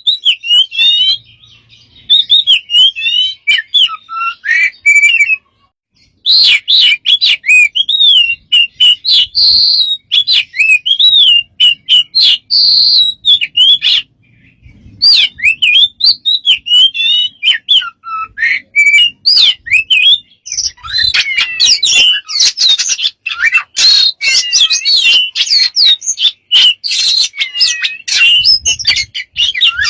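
A bird giving a rapid, varied run of warbling whistles, chirps and clicks, broken by a few short pauses and growing busier near the end.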